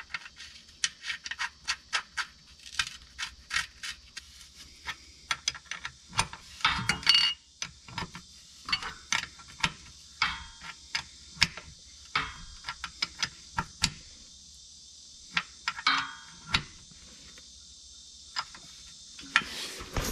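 Irregular light metallic clicks and taps of a hand tool working at the fill plug of a manual transmission case, thinning out after about 14 seconds. A faint steady low hum runs underneath.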